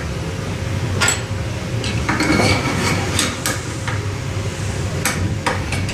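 Scattered metallic clinks and scraping of steel parts as a screwdriver pushes the steel dogs of an oilfield RB pulling tool around inside its skirt, seating them flush against the wall.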